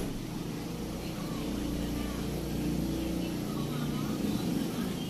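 Low rumble of a running engine, building up about a second in and easing off after about three and a half seconds, with faint voices behind it.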